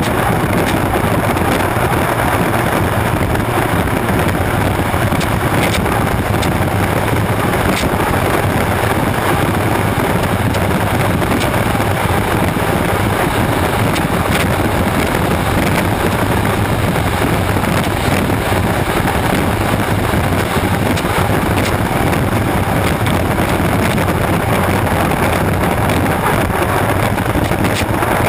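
Turbine-powered unlimited hydroplane running at racing speed, heard from an onboard camera: a loud, steady rush of engine noise, wind buffeting the microphone and hissing spray, with no change in pitch.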